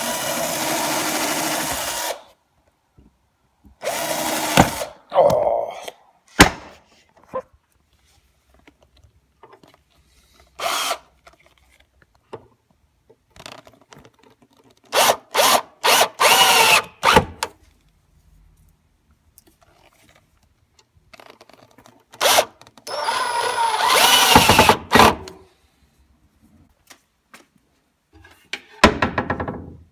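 Cordless drill-driver driving screws to mount cabinet door hinges. It whirs in separate runs with pauses between them. The longest runs last two to three seconds, and in the middle comes a cluster of quick short pulses.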